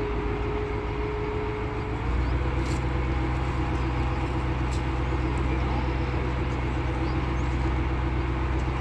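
Crane's diesel engine running steadily while it handles a precast concrete beam, growing louder about two seconds in as the engine takes on more load.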